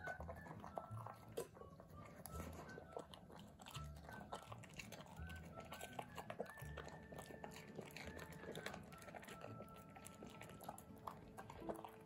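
Puppy chewing and biting soft peach slices, many quick irregular mouth clicks and smacks.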